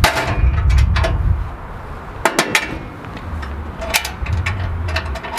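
Steel tailgate of a tractor-mounted tool rack being swung up and closed, with a series of metallic clanks and clicks, a few in quick succession midway. A steady low rumble runs underneath.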